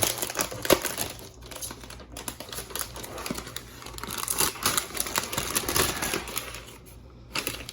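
Irregular clicking and clattering from a Logitech G512 Carbon mechanical keyboard being handled and unpacked, with a little crinkling of packaging.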